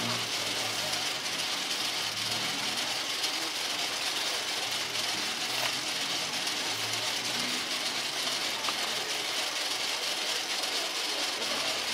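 Steady street background noise: an even hiss with a faint low hum of traffic.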